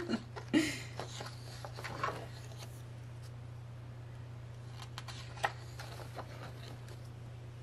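Photobook pages being handled and turned: soft paper rustles and a few light clicks, the sharpest about five seconds in, over a steady low hum.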